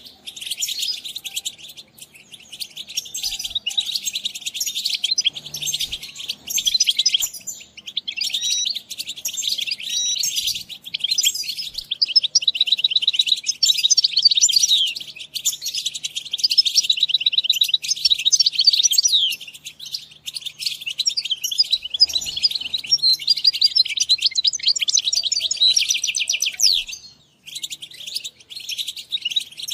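European goldfinch song: a long, fast run of twittering trills and chirps, pausing briefly about 8 seconds in and again near the end.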